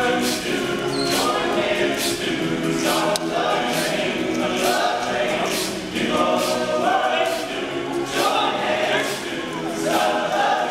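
Large all-male a cappella group singing in harmony: low voices hold chords under a lead melody, with a steady beat about twice a second.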